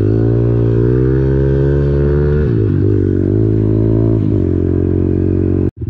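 Pit bike's small single-cylinder engine heard from the rider's seat, rising in pitch under throttle for about two seconds, then dropping back as the throttle eases and pulling again at a steadier pitch. The sound cuts off abruptly just before the end.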